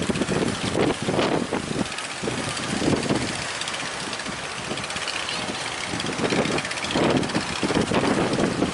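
Strong wind gusting on the microphone over rough, choppy sea, in irregular surges.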